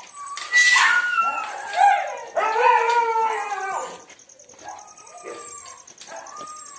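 Dogs in shelter kennels howling, with several long drawn-out calls overlapping, loudest in the first four seconds and then fainter. A steady high buzz runs underneath.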